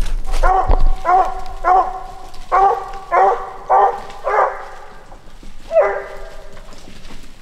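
Squirrel hound barking treed, up on its hind legs against the trunk: seven short barks about every half second, a pause, then one more bark. The dog is marking a squirrel in that tree.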